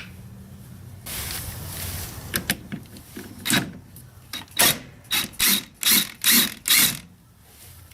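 Ratchet wrench with a T30 Torx bit being worked back and forth to loosen a screw on a washing machine, a string of short ratcheting strokes about two a second in the second half.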